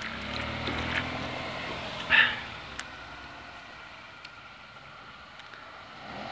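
Car engine and tyre noise: a low rumble fades over the first few seconds, then another car grows louder near the end as it approaches. A short, sharp, higher sound comes about two seconds in.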